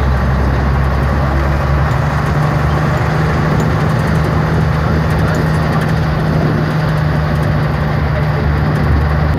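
Bus engine running steadily as the bus drives along, heard from inside the cabin with road and body noise mixed in.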